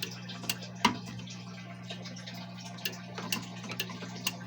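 Steady low electrical hum from the energized fire alarm control panel, with a few scattered light clicks, one sharper than the rest about a second in. No bell rings with this DIP switch setting.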